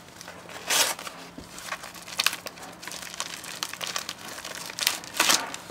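Small plastic mailer bag crinkling as it is cut and pulled open by hand, with loud rustles about a second in, at two seconds, and twice near the end.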